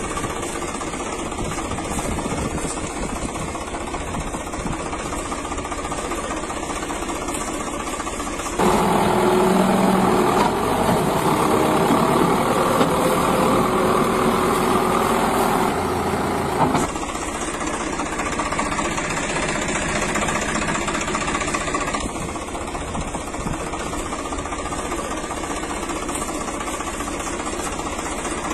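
Vehicle engine sound effect running steadily, with a louder, busier stretch of about eight seconds in the middle that starts and stops abruptly.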